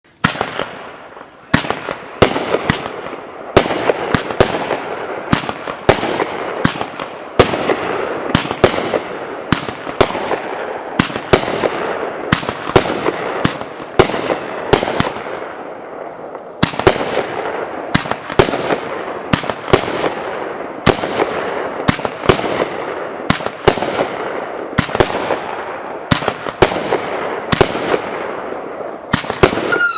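Consumer firework cake (Screaming Star 23-shot) firing its shots in quick succession, about one to two sharp reports a second, with a steady hissing, crackling noise between them.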